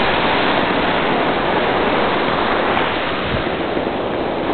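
Waterfall and river rapids rushing, a steady, even noise of moving water.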